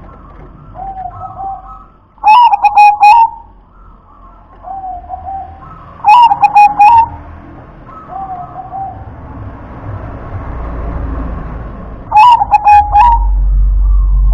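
Zebra dove (perkutut) singing its cooing song three times, about four seconds apart, each phrase a quick stutter of notes ending in a held coo. Fainter, lower coos come in between, and a low rumble rises near the end.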